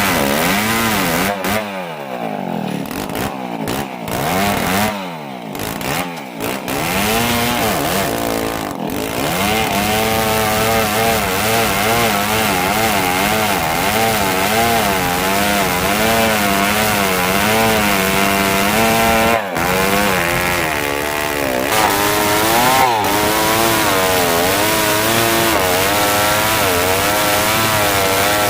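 Old two-stroke chainsaw running under load while ripping dry merbau hardwood, its engine pitch wavering up and down as the chain bites. The engine eases off and bogs a few times in the first several seconds, then runs steadily in the cut, with a brief dip in the middle.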